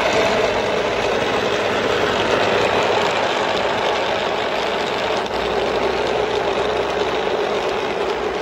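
Hamilton Beach countertop blender running steadily at speed, its motor and blades churning a thick drink of oats, peanuts and liquid.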